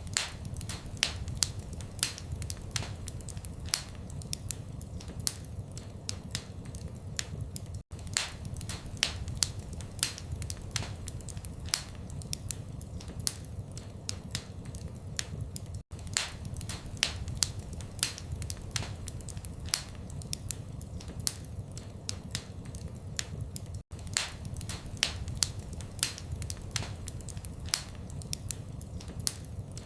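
Wood fire in a fireplace crackling: a steady low rumble of flames with many irregular sharp pops and snaps. The sound cuts out for an instant about every eight seconds, where the looped recording repeats.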